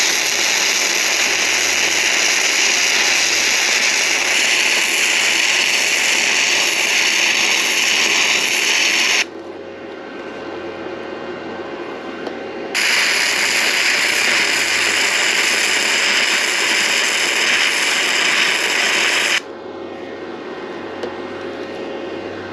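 MIG welding arc from a Simder SD5010 Pro multi-process welder sizzling steadily as a bead is laid. It stops about nine seconds in, starts again a few seconds later for a second run of about six seconds, then stops. A faint steady hum is left in the pauses.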